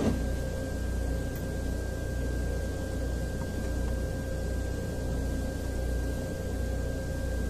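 Steady low background hum with a faint, thin, steady high tone. No distinct handling or tool sounds stand out.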